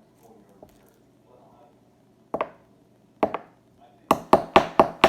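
A chunk of vanilla bean in a small plastic bag being smashed with hard knocks: two single knocks, then from about four seconds in a fast run of knocks at about four a second.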